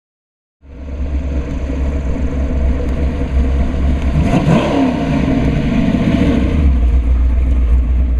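Street rod's Ford 351 Windsor V8 running through its dual Flowmaster exhaust, with a deep steady rumble and a rise and fall in engine pitch about halfway through. It starts abruptly about half a second in.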